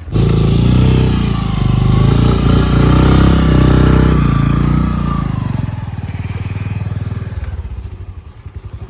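Motorcycle engine running with its pitch rising and falling, loud for about five seconds and then dropping away quieter.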